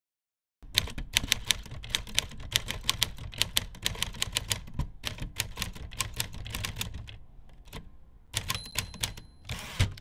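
Typewriter being typed on: a quick, irregular run of sharp key strikes, several a second, easing off about seven seconds in. Near the end come a few more strikes and a brief rasping sound.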